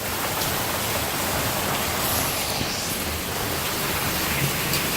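Rain pouring steadily, an even hiss with no breaks.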